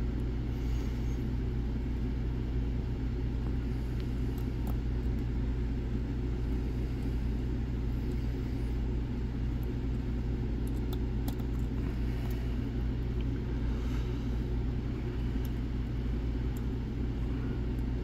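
Steady low background rumble, with a few faint, scattered light clicks of a pick working the pins inside a Zeiss Ikon TK5 lock.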